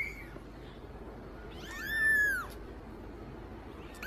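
Kitten mewing: a short mew at the start and a longer one about two seconds in, each rising and then falling in pitch, with another mew beginning right at the end.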